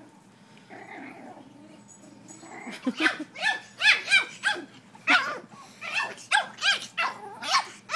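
Puppy yapping: after a quiet start, a rapid run of more than a dozen short, high-pitched yips begins about three seconds in and continues to the end.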